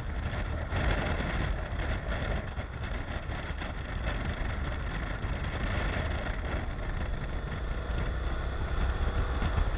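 Honda NC750X DCT motorcycle riding at road speed: a steady rush of wind buffeting over the on-bike microphone, mixed with engine and tyre noise, deepest in the low end.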